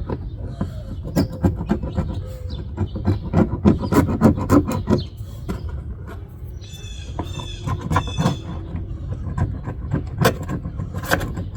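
A metal hand scraper working old window adhesive off a car body: a run of quick scrapes and knocks. A brief high squeak comes about seven seconds in.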